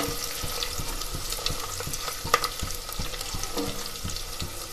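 Grated garlic and ginger sizzling in hot oil with cumin and mustard seeds in a steel pot, stirred and scraped with a wooden spatula, with steady crackling and one sharper click a little past two seconds in. The garlic and ginger are being fried until they brown.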